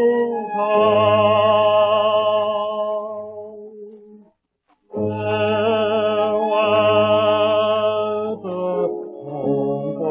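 Music from a 1932 Pathé 78 rpm shellac record: long held notes with vibrato, with little above the upper middle range. About four seconds in it fades and drops out for under a second, then starts again.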